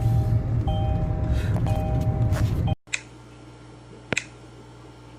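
Steady low road and engine rumble inside a moving vehicle, with a two-note electronic chime repeating about once a second. The rumble and chime cut off abruptly about three seconds in, leaving a faint steady hiss broken by one sharp click.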